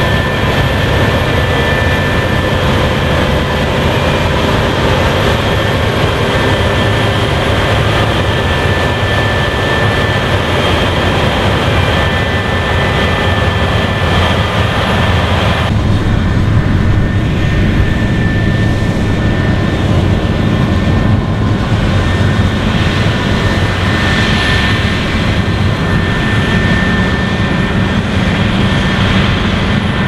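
Claas Lexion 8800 combine harvester running under load while harvesting wheat: a steady, loud machine drone with a high whine. About halfway through, the sound changes abruptly to a lower, heavier drone.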